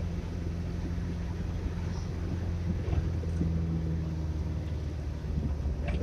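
Car engine and road noise, a steady low drone, heard from inside the moving car's cabin.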